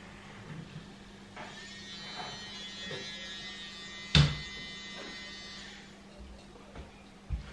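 Towels being unloaded from a front-loading washing machine. A steady electric buzz runs for about four seconds, with one sharp knock partway through.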